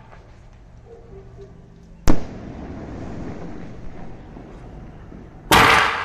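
Aerial shots from a three-shot sky-shot firework going off: a sharp bang about two seconds in, followed by a few seconds of quieter crackling, then another loud burst near the end.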